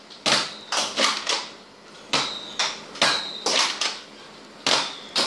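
Nerf Rough Cut 2x4 pump-action blaster firing Whistler darts in quick succession. There are about a dozen sharp plastic clacks from the pump and the shots, in three rapid bursts. Several shots are followed by a brief high whistle from the darts in flight.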